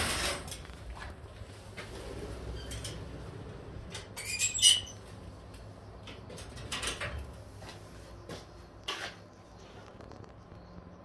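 Budgerigars in an aviary: a few short bursts of fluttering and harsh squawks, loudest at the start and about four and a half seconds in.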